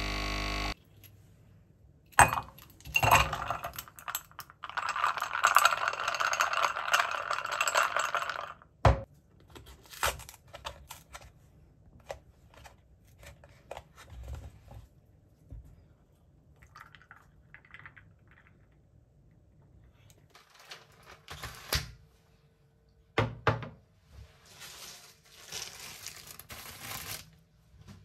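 A capsule coffee machine finishes dispensing and stops under a second in, followed by kitchen handling sounds: ice cubes clinking into a ceramic mug, a steady pour of milk for several seconds, knocks and clicks of things set down on the counter, and packaging rustling near the end.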